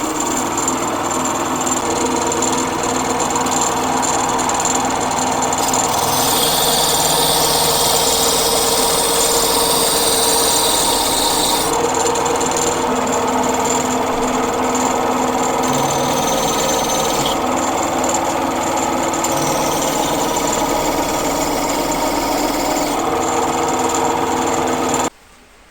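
Wood lathe running steadily. For a few stretches a higher hiss joins in as a turning tool cuts the spinning wood, and the sound stops abruptly near the end.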